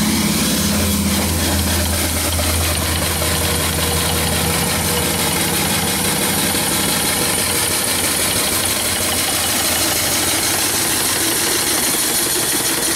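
Small single-cylinder steam engine running steadily on steam from a vertical fire-tube boiler: a fast, even chuff and clatter over a constant hiss of escaping steam.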